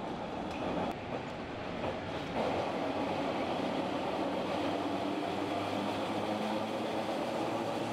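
Tram running along its rails, a steady noise with a faint low hum that grows louder about two and a half seconds in.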